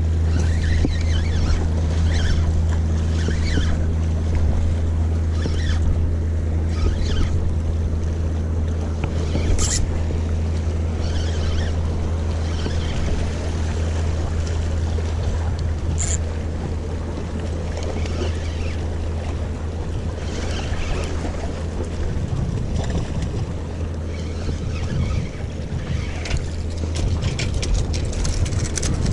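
Wind and sea on a rock jetty over a steady low drone, with two sharp clicks about six seconds apart.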